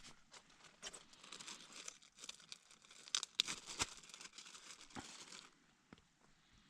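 Food packaging being crinkled and torn open, with a run of sharp crackles and clicks that stops about five and a half seconds in.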